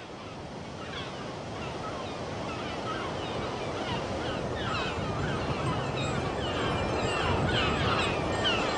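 Steady wash of sea surf, with many short, high bird calls that come more often and louder toward the end.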